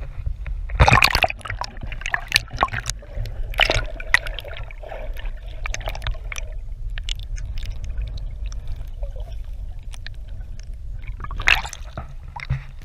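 Sea water splashing and sloshing around a handheld GoPro as it dips in and out of shallow water, with muffled gurgling while it is under the surface. Sharp splashes about a second in, near four seconds and again near the end, over a steady low rumble.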